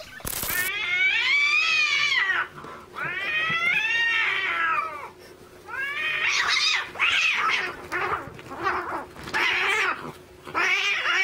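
Cats caterwauling in a fight standoff: two long yowls that rise and fall in pitch, then a run of shorter, choppier yowls. A brief burst of noise comes just after the start.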